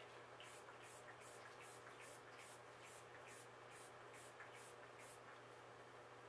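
Faint hiss of a small finger-pump spray bottle misting leaves: about a dozen quick sprays, two or three a second, stopping about five seconds in, over a faint steady hum.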